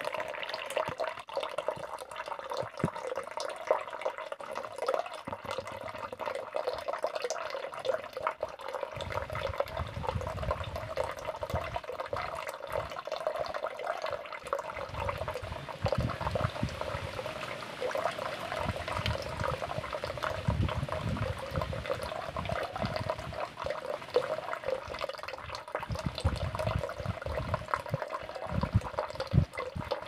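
Steady running, splashing water with many small drips and splashes, and irregular low rumbling that comes in from about nine seconds in.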